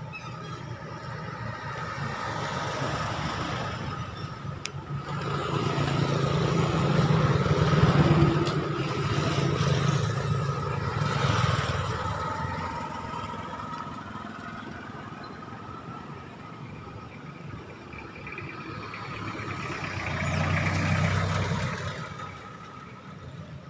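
Road traffic: vehicles passing one after another, the sound swelling and fading, loudest about a third of the way in and again near the end.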